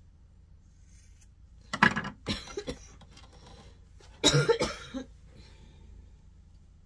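A person coughing in two short bouts, the first about two seconds in and the second about four seconds in.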